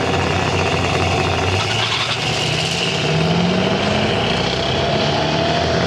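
Engine of a drag-racing vehicle at full throttle off the start line, its pitch climbing steadily over a few seconds as it accelerates down the strip.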